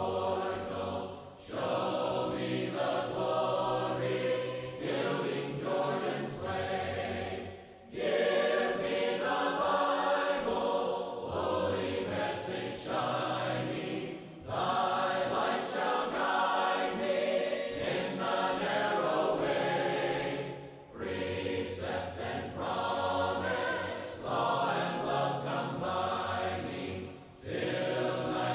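A cappella choir singing a hymn without instruments, in long phrases of about six seconds each with brief breaks between them.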